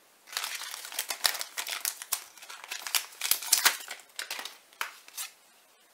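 Foil booster-pack wrapper crinkling and crackling as it is handled, stopping shortly before the end.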